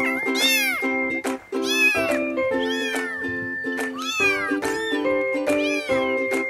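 Kittens mewing in a string of short, high, rising-and-falling meows, one or two a second, over background music.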